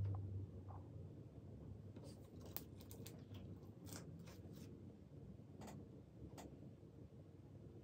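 Quiet room tone with a few faint, scattered clicks; a low hum fades out in the first half second.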